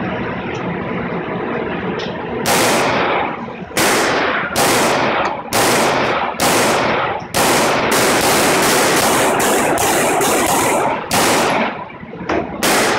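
Semi-automatic pistol fired at an indoor range, about fifteen shots, each ringing off the range walls. The first few come about a second apart, then a quicker string of roughly two to three shots a second, then a short pause and two final shots near the end.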